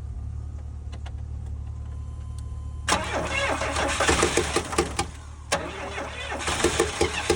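A vehicle's starter cranking the engine in two spells: a rough, rapidly pulsing churn starting about three seconds in, a short pause, then cranking again near the end. A steady low engine hum from the car left running sits underneath.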